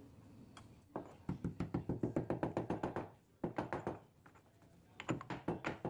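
Stone pestle pounding cumin seeds in a stone mortar: quick, evenly spaced knocks, several a second, in three runs with short pauses between them.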